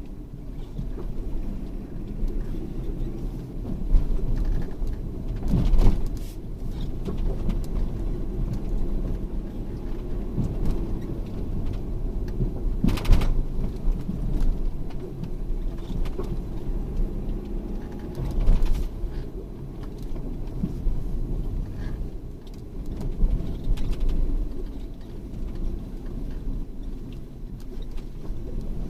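A motor vehicle driving: a steady low rumble with a few sharp knocks or rattles along the way.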